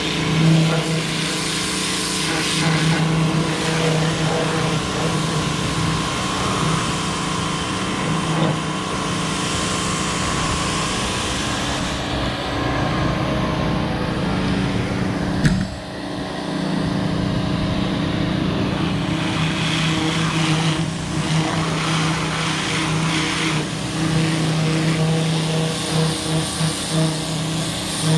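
Electric pressure washer running, its motor humming steadily under the hiss of the water jet spraying the lawn mower. Near the middle the sound dips briefly, with a click.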